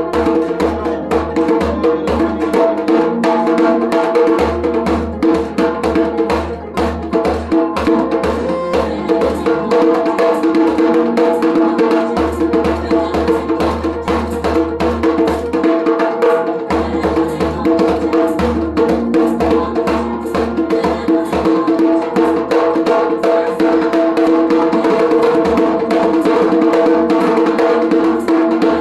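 Rope-tuned djembe played with bare hands in a quick, dense stream of strokes, over a background of held notes and a deep bass that shifts every few seconds.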